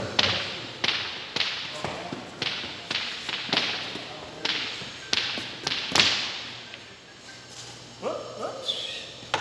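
A run of sharp clacks and knocks around a pool table, about two a second, each with an echoing tail. The loudest comes about six seconds in, and then it goes quieter.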